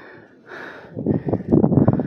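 A person breathing hard and close to the microphone, out of breath, with rough, loud breaths from about a second in.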